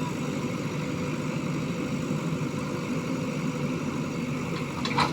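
Diesel engine of a JCB 3DX backhoe loader idling steadily, with one short sharp knock near the end.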